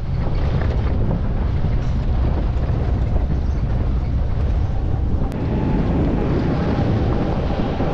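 Wind buffeting the microphone over the steady running noise of a moving safari vehicle.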